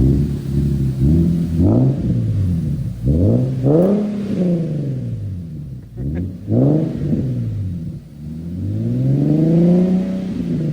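Infiniti G37's V6 revving through a loud ISR single-exit exhaust: four quick blips in the first four seconds, another rev a little past six seconds, then a longer rev that climbs, holds high and falls away near the end.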